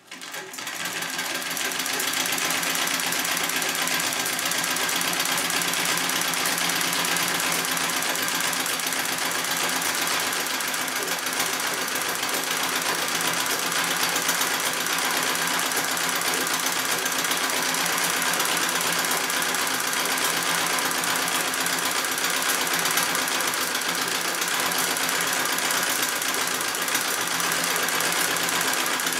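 Singer 66 treadle sewing machine starting up and, within a couple of seconds, running steadily at speed, stitching through a quilt.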